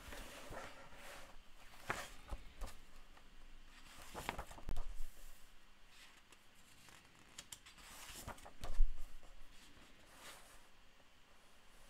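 Pages of a large printed book being turned and pressed flat by hand: several papery swishes and rustles, the loudest about four and a half and nine seconds in, the second ending in a soft thump.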